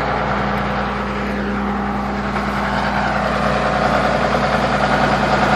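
Excavator engine idling steadily, a constant low hum with an even drone.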